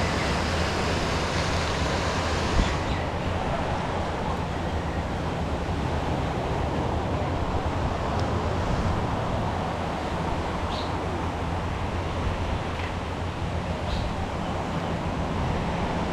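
Steady outdoor ambience: an even wash of noise over a low steady hum, with the upper hiss thinning about three seconds in and a few faint, short high chirps later.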